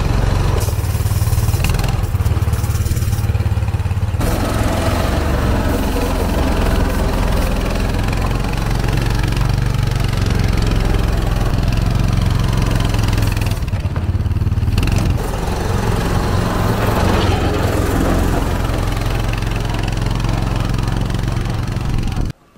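The engine of a 1970s Amphicat six-wheel amphibious ATV running steadily under load as the machine drives over dirt and sand. The sound cuts off abruptly near the end.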